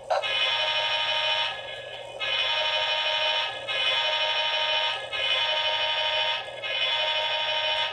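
HO-scale model locomotive's sound decoder blowing its horn through a small speaker: five long, steady blasts of about a second and a half each, with short breaks between them.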